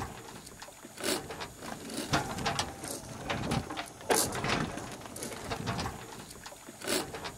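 Irregular creaks, clicks and knocks of a small sailing catamaran's fittings and rigging under way, over a low background of water and wind.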